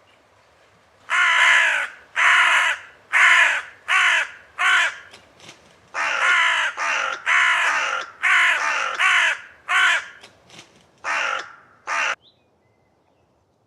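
Hooded crow calling: a series of about a dozen caws, each about half a second long, some coming in quick pairs, with a few fainter short calls among them. The calls stop about twelve seconds in.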